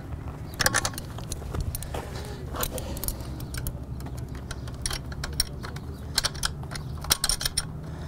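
Metallic clinks and rattles from hand work at a motorcycle's rear axle and drive chain, in short clusters about every second.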